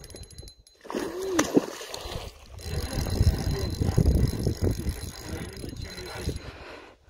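Spinning reel being wound during the fight with a hooked pike, giving a run of quick clicks, over a low rumble.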